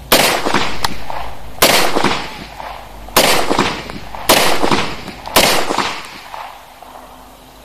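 Beretta 92FS 9mm pistol firing five single shots about a second or more apart, each ringing out briefly. The rounds are cheap local ammunition, and the last shot empties the magazine.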